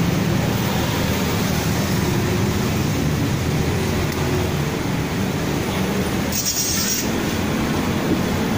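Aftermarket car audio system in a Honda HR-V playing music loud, a dense steady wash of sound with heavy bass and no clear tune.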